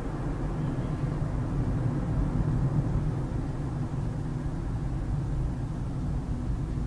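Car driving along a city street, heard from inside the cabin: a steady low hum of engine and tyre noise.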